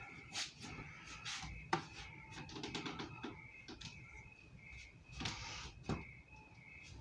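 White latex gloves rustling and crinkling as they are handled and pulled on, with a sharp snap about two seconds in.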